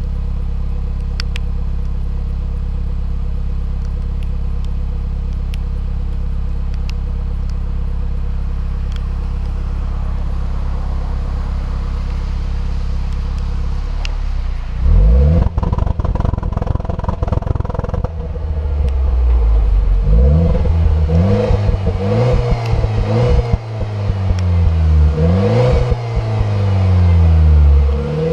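Renault Clio IV RS's 1.6-litre turbocharged four-cylinder, heard through its original exhaust in Sport mode. It idles steadily for about half the time, then is revved again and again in short rising and falling blips.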